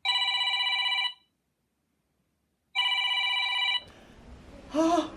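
Telephone ringing twice, a trilling electronic ring of about a second each time with a pause of about a second and a half between. The second ring cuts off abruptly, and a brief word from a woman's voice follows near the end.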